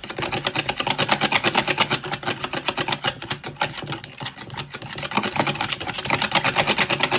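Wire whisk beating homemade mayonnaise in a plastic bowl: a fast, even clatter of the wires striking the bowl, many strokes a second.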